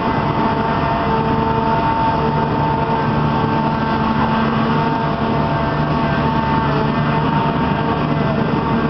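The Grand Éléphant's diesel-powered hydraulic drive running as the machine walks: a loud, steady mechanical drone with a few held humming tones.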